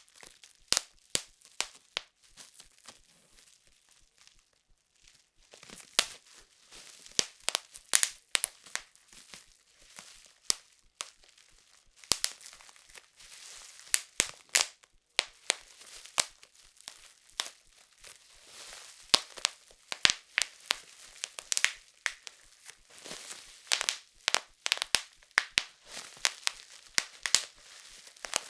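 Plastic bubble wrap being squeezed and handled: irregular sharp pops of bursting bubbles, sometimes several in quick succession, over the crinkling rustle of the plastic sheet.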